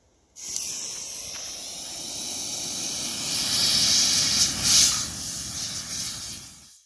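Leftover rocket propellant burning off in a pan: a steady hiss that starts half a second in, grows louder past the middle with a couple of brief surges, and fades away near the end.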